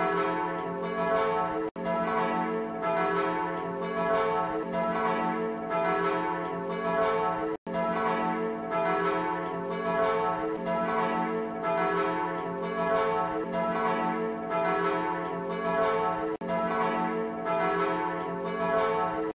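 Church bells pealing: several bells swinging together, their strokes overlapping in a steady, continuous ringing. The sound drops out for an instant three times.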